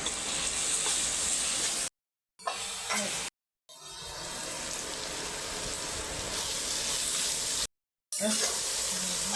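Food frying in hot oil in a pan, a steady sizzle. It is cut into short pieces by abrupt gaps of silence about two, three and a half, and eight seconds in.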